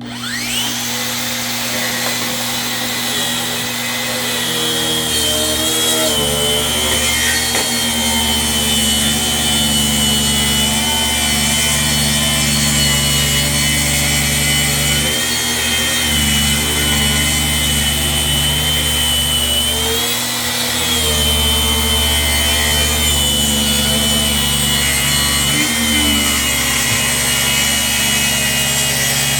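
Electric power tool spinning up and then running steadily as it cuts a black walnut slab, with a high whine that wavers slightly under load.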